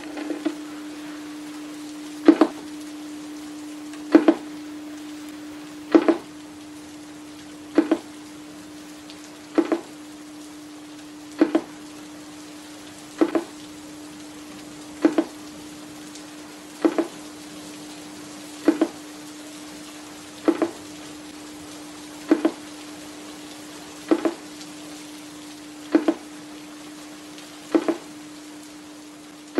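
Electronic static: a steady hiss with a constant low hum tone under it, and a sharp click or pulse repeating evenly just under every two seconds, like a slow mechanical beat.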